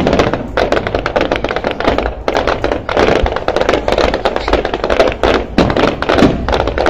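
Fireworks going off in quick succession: a dense, irregular crackle of pops and bangs, with a few louder reports among them.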